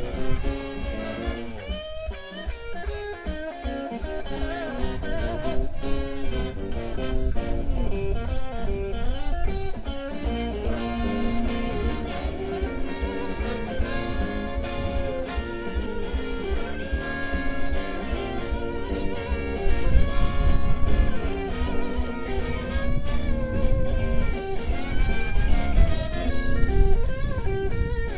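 Live blues played by a guitarist and a high school jazz band, with the guitar out front over drum kit and band and some notes bending and wavering in pitch.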